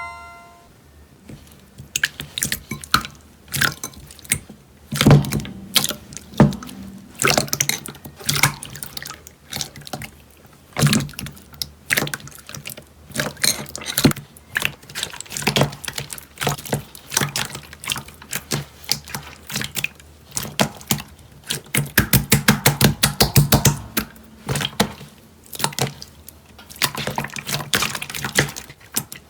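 Slime being squeezed and pressed by hand, giving wet squelches and sharp popping clicks as air pockets burst, with a fast run of pops about three-quarters of the way through.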